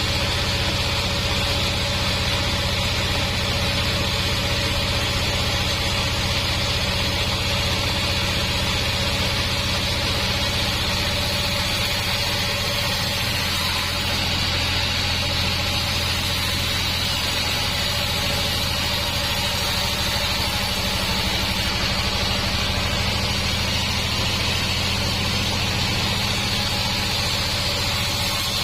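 Sawmill band saw machinery running steadily, a constant mechanical hum with a high hiss over it.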